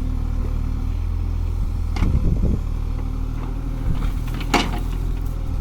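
Kubota mini excavator's diesel engine running steadily while digging, with brief knocks about two seconds in and again later.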